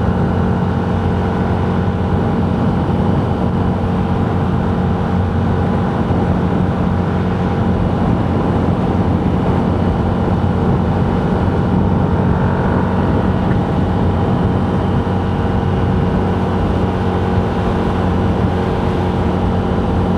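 Steady engine and road noise inside a vehicle cruising at highway speed, with a constant low hum that holds unchanged.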